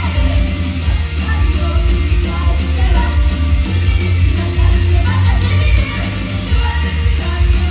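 An idol group singing live over a loud rock backing track with heavy, pulsing bass.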